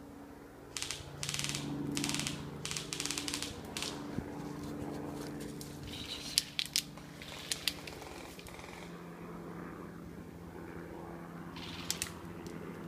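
Footsteps and rustling as someone pushes through ferns and undergrowth, loudest in the first few seconds, followed by a few short sharp clicks or snaps in pairs in the second half.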